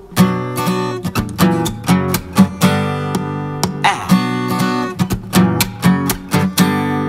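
Acoustic guitar strummed solo in a steady rhythm, chords ringing between the strokes: the instrumental intro to a song.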